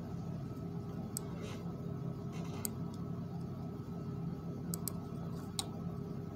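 Steady low room hum, like a fan or electrical hum, with a few faint scattered clicks and two brief soft hisses.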